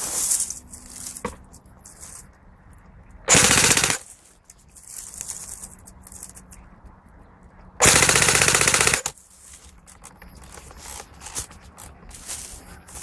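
Airsoft gun fired full-auto in two short rapid bursts, the first at a little over three seconds in and lasting under a second, the second near eight seconds in and lasting about a second.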